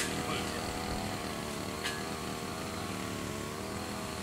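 A steady engine drone with a faint hum of several wavering tones, and a couple of light clicks.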